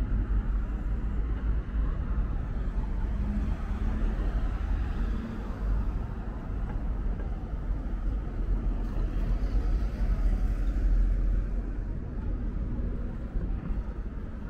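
Road traffic: cars passing with a steady low rumble.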